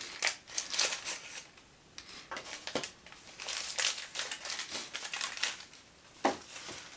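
Foil wrapper of a dark chocolate bar crinkling and rustling in the hands as it is unwrapped, in irregular rustles with short pauses.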